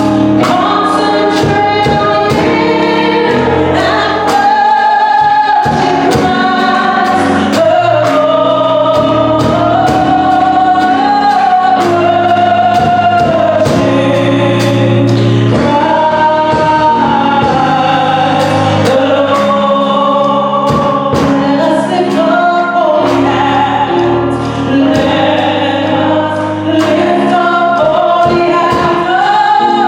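Live gospel worship music: group singing over band accompaniment with a steady beat.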